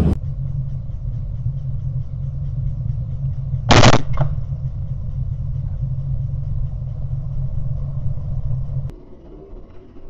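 Helicopter running with a steady, pulsing low rumble; just under four seconds in comes one loud gunshot, followed by a short fainter crack. Near the end the helicopter noise drops away to a much quieter background.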